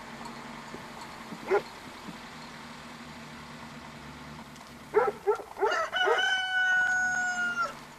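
Rooster crowing: a run of short rising notes about five seconds in, leading into a long held final note. A single short call comes about a second and a half in.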